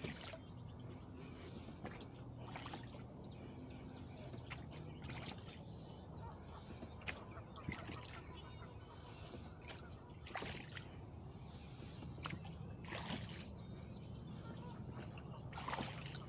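Oars working a small rowboat through river water: a splash and a trickle of drips from the blades every two to three seconds, with a few sharp knocks along the way.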